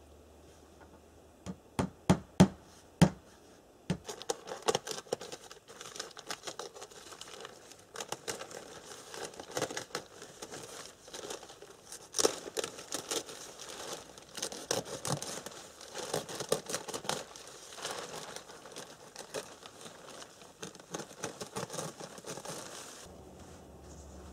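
A quick series of sharp hammer blows about two seconds in, then a long stretch of plastic sheeting crinkling and rustling as it is handled and pulled into place.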